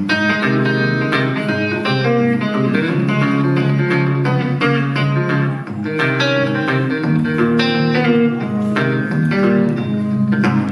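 Amplified guitar playing an instrumental break in country-style picking: a steady run of quick plucked notes and chords.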